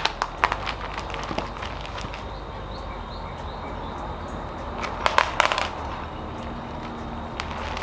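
Handling noises as a wooden canvas-frame strip is pressed down onto a crinkly plastic-coated sheet: scattered clicks and light crinkles, with a brief cluster of them about five seconds in, over a steady hiss.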